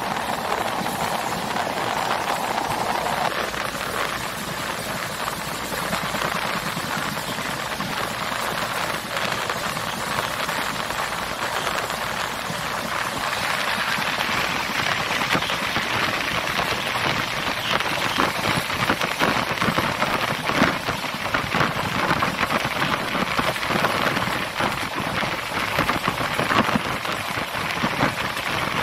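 Passenger train running, heard from inside the coach: a steady rushing noise thick with the fine rattle and clatter of the carriage and wheels on the track, growing a little louder and brighter about halfway through.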